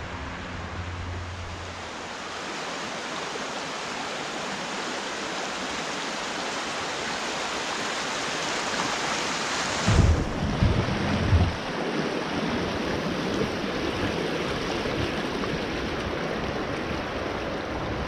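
Steady rush of river water running through a shallow riffle around a kayak, with a few low thumps about ten seconds in.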